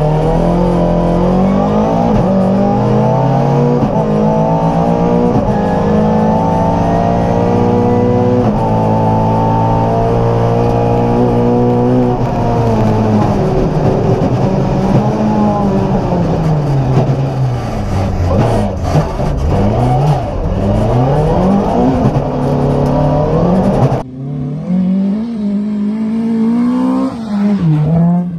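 Volvo 240 rally car engine at full throttle, revving up through the gears with several upshifts over the first dozen seconds. After that the revs rise and fall again and again as the car brakes and accelerates through corners. Near the end the sound changes abruptly and turns duller, though the engine keeps running.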